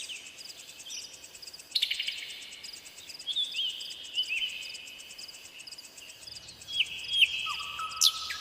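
Forest ambience: insects, crickets among them, chirp in fast pulsed trills, one train starting about two seconds in, while wild birds give short whistled chirps that slide in pitch, several of them through the middle and lower whistles near the end.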